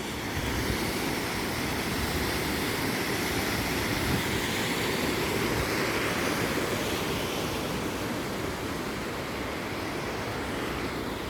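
Narada Falls' water pouring down, a steady loud rush with no breaks.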